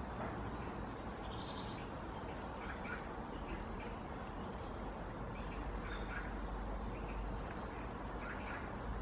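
Birds calling: short chirps and call notes scattered throughout, over a steady low background rumble.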